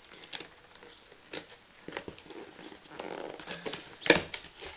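A small box being handled and opened by hand: scattered taps and rustles, with the loudest sharp clatter about four seconds in.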